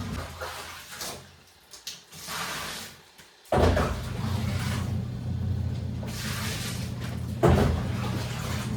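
Washing machine motor stops, leaving a pause of about three seconds with a few small knocks. It then starts up again abruptly, running with a steady hum and a noisy churning layer, and a sharp knock comes about four seconds later.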